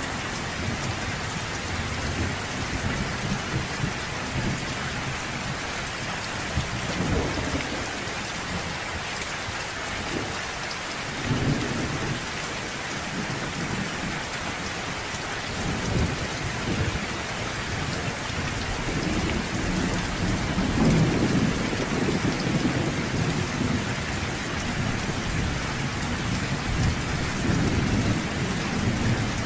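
Steady rain hissing, with low thunder rumbling on and off beneath it; the longest and loudest roll comes about two-thirds of the way through.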